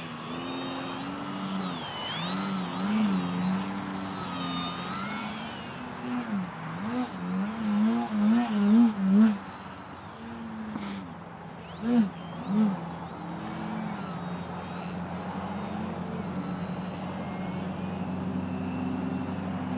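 Electric motor and propeller of a 32-inch Twisted Hobbys MXS-C foam aerobatic RC plane buzzing in flight, its pitch swooping up and down with throttle changes and passes, then holding steadier in the second half. A thin, steady high whine runs underneath.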